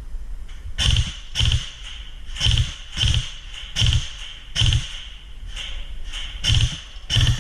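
Footsteps: heavy, evenly paced thuds, about one every three-quarters of a second.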